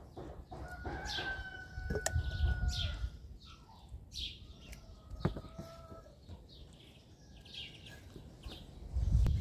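A rooster crowing twice, each crow held about two seconds, over repeated short falling chirps of small birds. Two sharp knocks and some low rumbles come through, the loudest rumble near the end.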